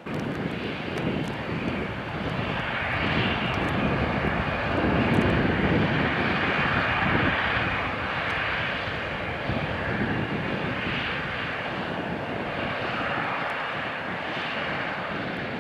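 Two John Deere 9620RX four-track tractors, each with a 15-litre Cummins QSX15 diesel, running under load as they pull chisel plows through the field. It is a steady, dense engine drone that swells a little partway through and then eases off slightly.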